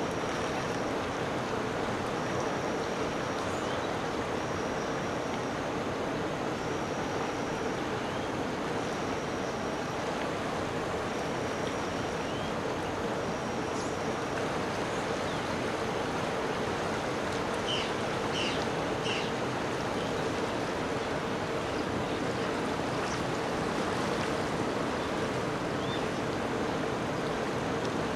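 Steady rush of flowing river water. A faint high note repeats about every second and a half through the first half, and a few short high chirps come about two-thirds of the way in.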